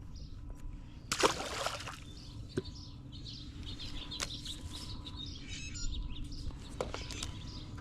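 A short splash of water about a second in, followed by a few scattered clicks and knocks, over a steady low hum.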